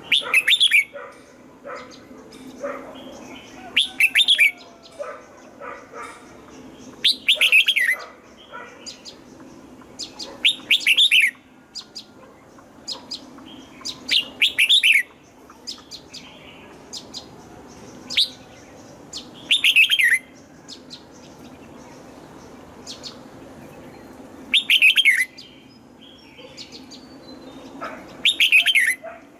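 Red-whiskered bulbul singing loud, short phrases every few seconds, about nine in all, each a quick run of notes falling in pitch.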